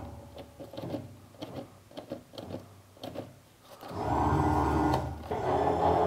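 Electric height-adjustment motor of a Felder AD741 planer-thicknesser moving the thicknessing table. After a few faint ticks, the motor hums steadily from about four seconds in, stops briefly, then runs again.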